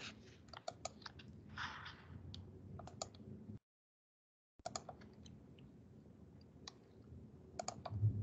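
Faint, scattered clicks from a computer mouse and keyboard while a screen share is being set up. The sound cuts out completely for about a second midway.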